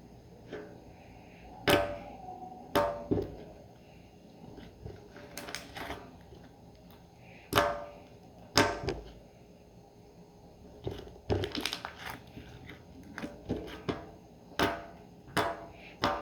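Slime being squeezed and pressed by hand, giving irregular sharp pops and clicks over a quiet squishing.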